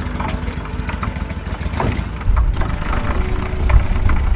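Air-cooled surface-drive mud motor on a boat running steadily, a low engine rumble with some water and clatter over it.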